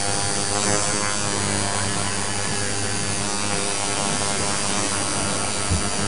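Electric tattoo machine buzzing steadily while putting colour into a tattoo, with one short low thump near the end.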